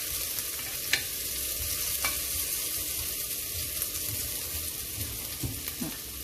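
Chopped garlic and ginger sizzling in hot vegetable oil in a pan, a steady frying hiss, with two sharp clicks about one and two seconds in.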